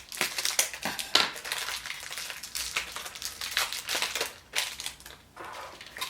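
Wrapper and plastic packaging of a Chupa Chups surprise egg crinkling and crackling as it is unwrapped and opened by hand. The crackles come in a dense, irregular run and thin out near the end.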